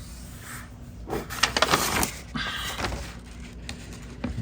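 Handling noise of a loose automotive wiring harness and fuse panel being moved: rustling and light clicking for about two seconds, starting about a second in, with a single click near the end. A faint steady hum sits underneath.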